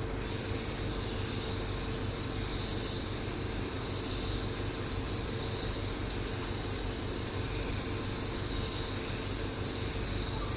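Spray mist gun of a hydrofacial machine spraying a fine water mist: a steady hiss that starts abruptly and cuts off near the end, over the steady hum of the machine running.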